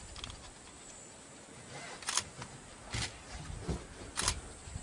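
Camera shutter clicking: single shots about two and three seconds in, then a quick double near the end.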